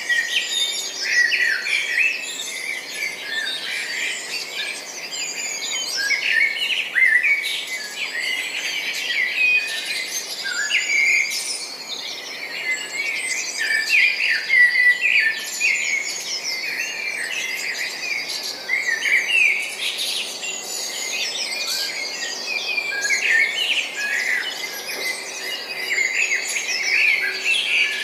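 Many songbirds chirping and trilling at once in a dense, continuous chorus of quick high notes, with a faint steady low hum beneath.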